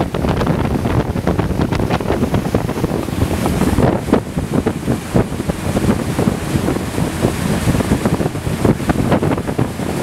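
Wind buffeting the microphone: a loud, steady rush full of irregular gusty pops.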